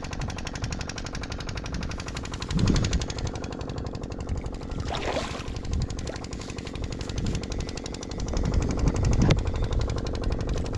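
Fishing reel clicking in a fast, even rattle while a hooked carp is played in close to the bank.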